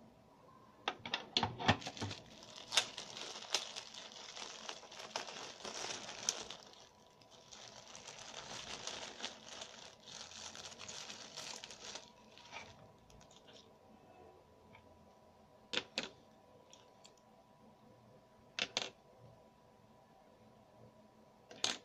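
Clear plastic packaging bag crinkling and rustling as parts of a grooming kit are pulled out of it by hand. A quick run of sharp clicks comes about a second in, and a few single clicks and taps of plastic parts follow later on.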